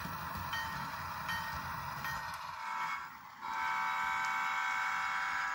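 Sound-equipped model train locomotive running with a low rumble and light clicks, then sounding a steady horn blast of about two seconds, starting about three and a half seconds in.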